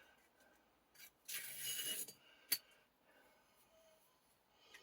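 Masking tape being pulled and torn while the vise slide is taped up: a short rustling rip about a second and a half in, with a couple of light clicks around it.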